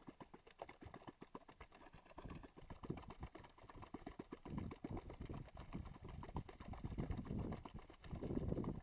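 Small waves lapping and slapping against a boat's hull: a quick, irregular patter of low slaps that grows busier about halfway through.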